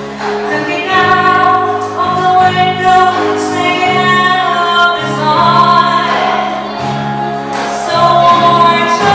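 Live rock band playing a song: a woman sings lead over electric guitar, bass guitar and drums.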